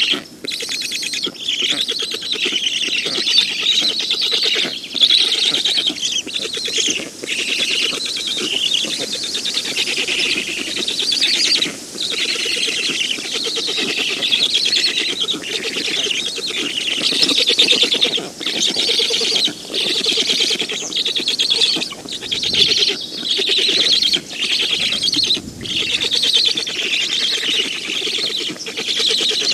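Black stork nestlings calling almost without a break in a fast, buzzy chatter, broken by short pauses.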